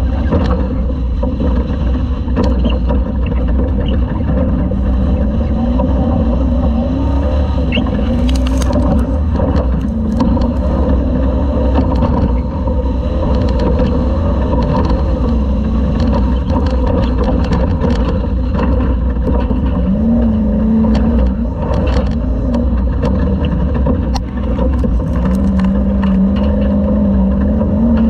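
Class 2000 Toyota off-road race truck at speed, heard from on board: the engine's pitch rises and falls over and over with the throttle, over a heavy low rumble, with scattered knocks and rattles.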